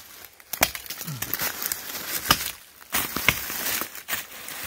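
Hatchet chopping into the bark of a beech trunk: a few sharp strikes about a second apart, making hack-and-squirt cuts for herbicide. Dry leaf litter rustles underfoot between the strikes.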